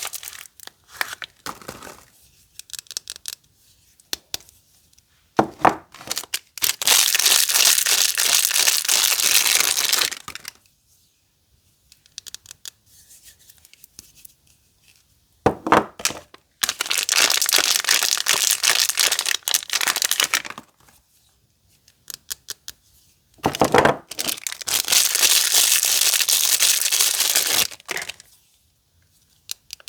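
Soap packaging being crinkled and torn open, in three long stretches of tearing of about three to four seconds each. Each stretch begins with a short sharp crackle, and small crinkles and taps fall in the quieter gaps between them.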